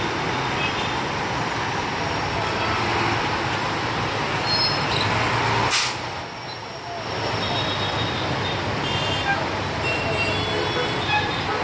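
Steady outdoor traffic noise, with a sharp click a little before halfway followed by about a second of quieter sound.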